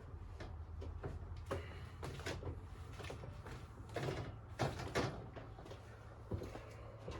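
Irregular knocks, clunks and short scraping rattles of washing-machine parts being handled and fitted back together, several sharper knocks around the middle, over a steady low hum.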